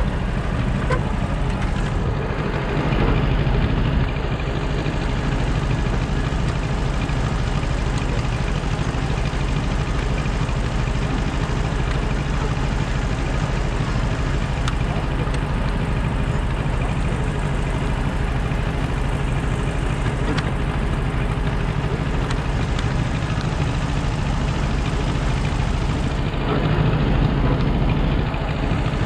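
An engine running steadily, a low drone that keeps the same pace throughout.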